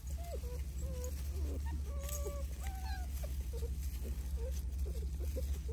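A litter of American bully puppies whimpering and squeaking: many short, high little cries, some sliding up or down in pitch, scattered throughout over a steady low hum.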